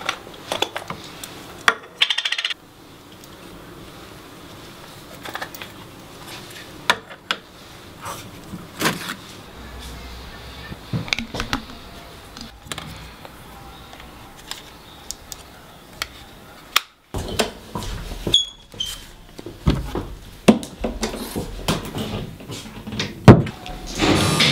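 Irregular small clinks and knocks of objects being handled, with a brief high ping partway through and a louder knock about a second before the end.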